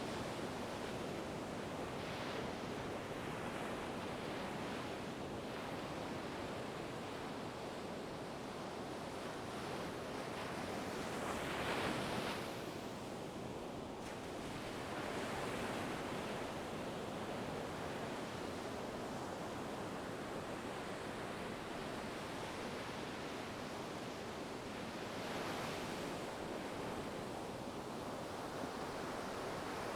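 Ocean waves breaking and washing on a shore in a steady surf, with a louder wave about twelve seconds in and smaller swells around two seconds and near the end.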